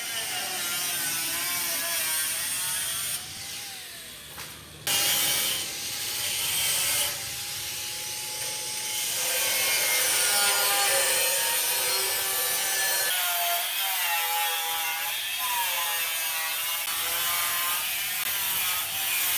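Handheld angle grinder with a thin cut-off disc cutting a curved line through thin sheet steel, a hissing, grating cut with the motor's whine wavering as the disc loads and eases. The cut drops off for a moment about three to five seconds in, then picks up again.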